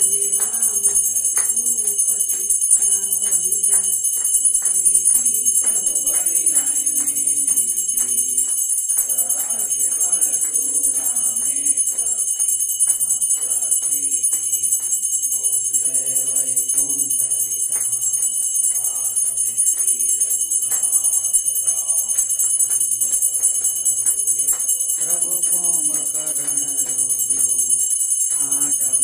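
Aarti bell ringing without pause, while voices sing the aarti and hands clap along.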